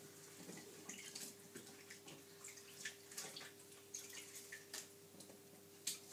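Faint water splashing and dripping in a kitchen sink as hands work in a bowl of water, with scattered small clicks and knocks, the sharpest near the end. A faint steady hum runs underneath.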